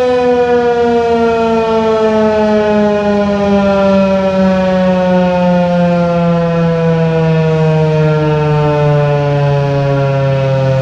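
ASC T-128 outdoor tornado siren sounding loud and steady, its tone sliding slowly downward in pitch.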